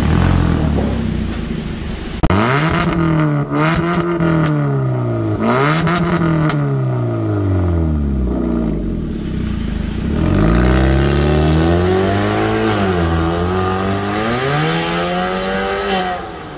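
Kia Cerato 1.6's four-cylinder engine through an aftermarket Powerbom exhaust: idling, then blipped hard a few times with sharp cracks from the exhaust, and later pulled away, the exhaust note rising and falling repeatedly before it drops off suddenly near the end.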